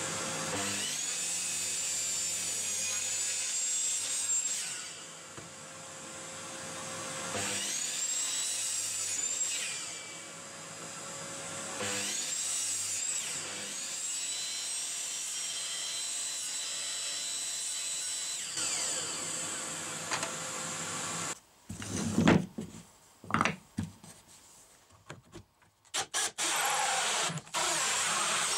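DeWalt miter saw running and cutting through MDF, with two short dips in its sound before it winds down. A few loud knocks follow, then near the end a cordless drill running a hole saw into a wooden block.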